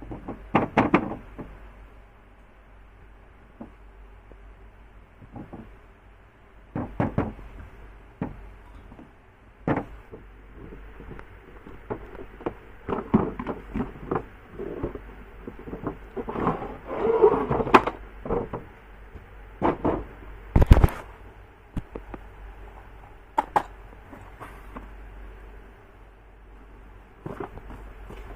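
Irregular clicks, knocks and rustling handling noises, busier in the middle, with one sharp thump about two-thirds of the way through.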